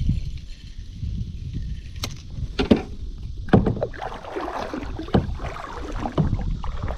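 Sounds from a fishing kayak: several sharp knocks and a spell of splashing water about midway, over a steady low wind rumble on the microphone.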